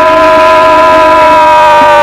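Air-raid siren sounding the red alert, a loud wailing tone whose pitch falls slowly. It signals an imminent air attack and orders people to take shelter.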